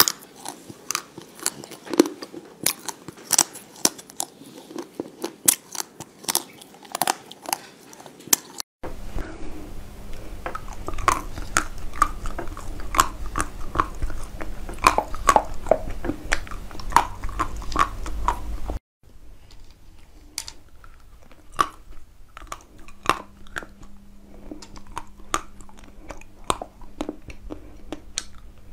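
Close-miked bites into hard frozen chocolate pieces, each bite a sharp crack, followed by crunchy chewing, at irregular intervals throughout.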